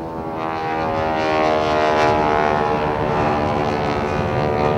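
HAL Light Combat Helicopter's twin-turboshaft engines and rotor running as it taxis close past. It makes a steady, many-toned drone that grows louder over the first second or so and then holds.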